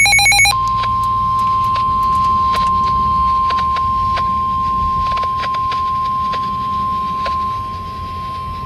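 Emergency alert tones from a weather radio broadcast. The warbling digital SAME header burst ends about half a second in. The single steady NOAA Weather Radio 1050 Hz warning alarm tone follows and holds for about eight seconds, announcing a severe thunderstorm warning. Scattered static clicks crackle through it.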